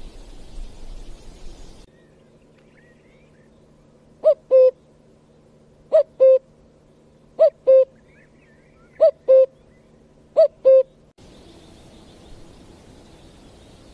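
Common cuckoo calling its two-note "cuck-oo", the second note lower than the first, five times about a second and a half apart.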